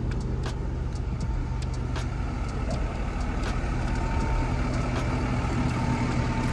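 Truck engine idling with a steady low hum, with a few sharp clicks in the first half and a faint steady higher tone joining about four seconds in.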